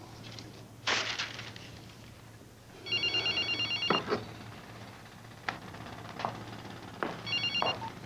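Telephone ringing with a rapid electronic trill of about ten pulses a second: one ring a little over a second long about three seconds in, then a second ring starting near the end. A sharp slap about a second in.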